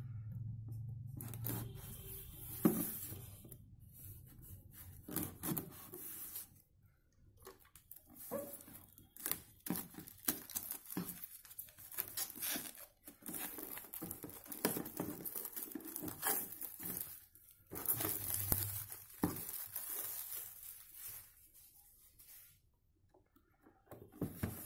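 Clear plastic shrink-wrap being torn and peeled off a cardboard box, crinkling and rustling in irregular bursts as the box is handled, with one sharp click a few seconds in.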